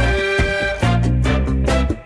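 Upbeat background music with a steady beat, in a swing or ska style with horns and bass.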